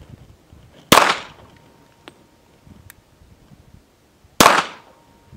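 Two pistol shots about three and a half seconds apart, each followed by a short echo: a CZ P10S firing Seismic Quakemaker 185-grain 9mm rounds, which run at about 975 feet per second, below the speed of sound.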